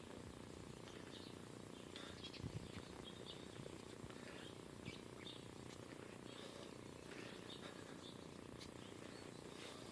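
Quiet background with faint, short bird chirps scattered irregularly throughout.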